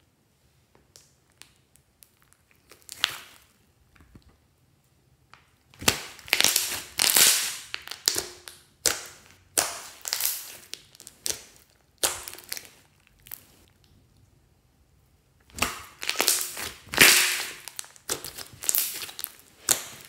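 Hands squeezing and stretching a large mass of glossy slime, giving sticky crackling and popping noises in bursts. It is mostly quiet for the first few seconds, then comes in two busy spells with a short lull between them.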